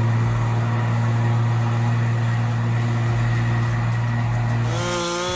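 A heavy truck engine drones at a steady pitch. Near the end it cuts off abruptly and a chainsaw's higher whine takes over.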